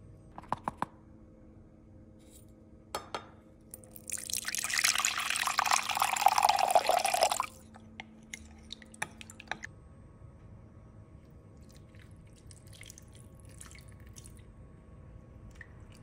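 Liquid running into a glass measuring cup for about three and a half seconds, the loudest sound. It is followed by a wooden spoon stirring and knocking against the glass. A few light clicks come before it.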